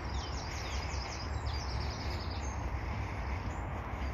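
A small songbird singing a fast run of short, high, falling notes through the first couple of seconds, with a few more notes near the end, over a steady low rumble.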